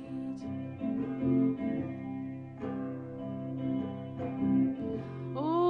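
Guitar playing an instrumental passage between sung lines of a song, with fresh notes or strums every second or so over sustained chords. A woman's singing voice comes in near the end.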